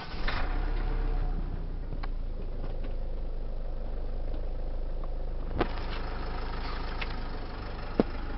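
2012 Nissan X-Trail's engine starting up with a push-button start, running at raised revs for about a second, then settling to a steady idle. Two sharp clicks come over the idle, one about five and a half seconds in and a louder one just before the end.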